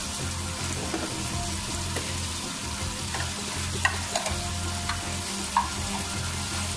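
Diced potatoes, peas and tomatoes frying in oil in a metal wok: a steady sizzle with a few short pops near the middle.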